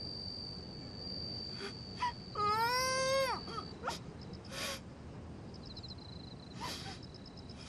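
A single muffled whimpering cry, about a second long, its pitch holding and then dropping at the end, from a woman gagged with a cloth. Under it runs a steady high chirring of night insects, with a few soft faint clicks.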